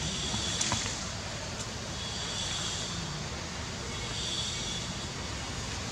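Steady outdoor background noise, a low rumble under a hiss, with a few faint clicks in the first two seconds and two brief high-pitched buzzes, about two and four seconds in.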